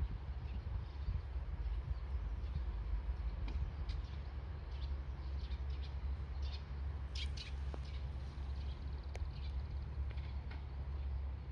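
Birds chirping in short scattered calls, clustered near the middle, over a steady low rumble.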